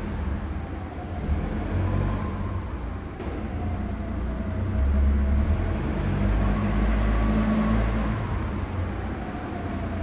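Car driving: steady low engine and road rumble, with faint whines that slowly rise and fall in pitch.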